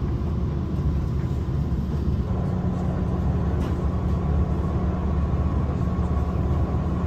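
Steady low rumble and hum inside a Hankyu 2300 series electric train car, with a low steady tone joining about two seconds in.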